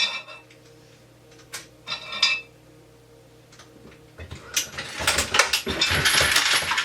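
Metal clinking of brass cases and bullets in a progressive reloading press with its case and bullet feeders: a few separate clinks, then from about four seconds in a dense run of rapid clattering as the machine cycles. A faint steady hum runs underneath.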